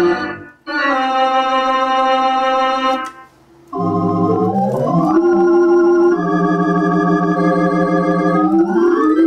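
Rodgers Trio theater organ playing digitally sampled Mighty Wurlitzer pipe ranks: held chords with a wavering tremulant tone. The music breaks off briefly twice, and twice climbs upward into the next chord, the second time near the end.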